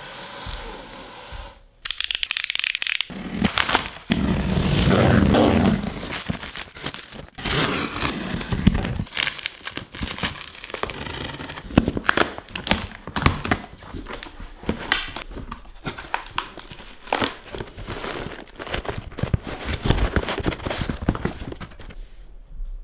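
Unwrapping a parcel: black plastic wrap torn and crinkled off the box, then a box cutter slicing through packing tape and the cardboard flaps rustling and scraping as they are pulled open. The rustling is irregular, with many sharp clicks and crackles, and is loudest a few seconds in.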